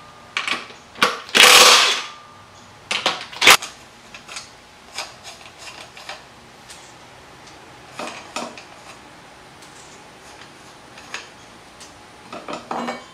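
Cordless power wrench spinning loose the 14 mm nuts on a motorcycle's rear sprocket in a few short runs, the longest about a second, followed by scattered light metal clicks and clinks as the loose nuts are handled and lifted off the studs.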